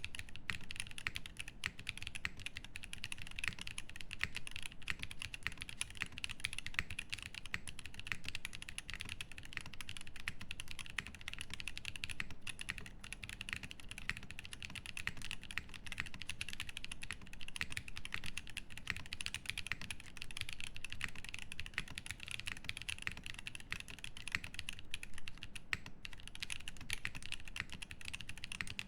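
Continuous fast typing on a Frog TKL mechanical keyboard with lubed Drop Holy Panda tactile switches, an aluminium plate, case foam and GMK keycaps: a dense, steady stream of key clacks that begins suddenly.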